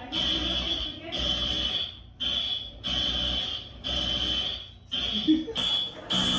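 Smoke alarm sounding: a shrill, high-pitched beep repeating about once a second, each beep under a second long with short gaps between.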